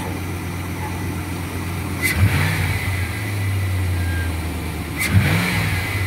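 2004 Chevrolet Silverado's 5.3 L V8 running with a long, steady high-pitched whistle. The throttle is blipped twice, about two and five seconds in, and the whistle carries on through the revs. The owner suspects a vacuum line leak or the intake manifold.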